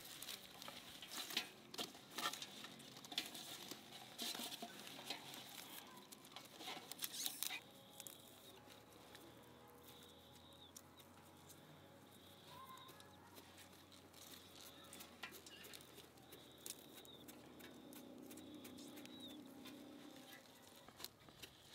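Crisp snapping and clicking of fresh green onion stalks being trimmed by hand and with a knife, busy for the first eight seconds or so, then only a few scattered clicks. Faint high chirps sound in the background during the quieter part.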